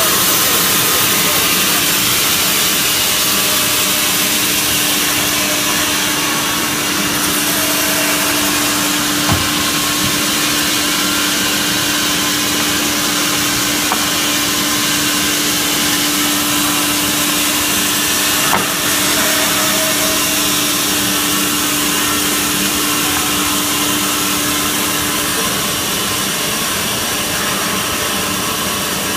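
Horizontal band saw for wood running with a steady, hissing machine noise under a low hum; the hum drops away a few seconds before the end, and a few light clicks sound along the way.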